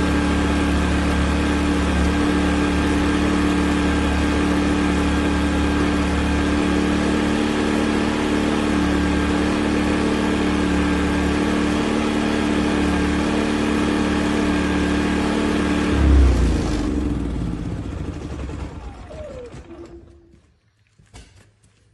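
Westinghouse 4000-peak-watt dual-fuel inverter generator running steadily, then shutting off about 16 seconds in with a brief thump and winding down over a few seconds to silence. A few faint clicks near the end.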